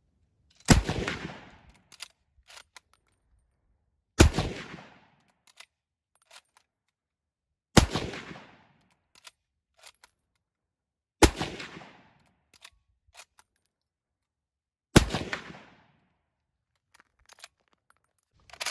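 Lee Enfield No.4 Mk2 bolt-action rifle in .303 British firing five shots of surplus ammunition, about three and a half seconds apart, each shot trailing off over about a second. Between shots come the short clicks of the bolt being worked to chamber the next round.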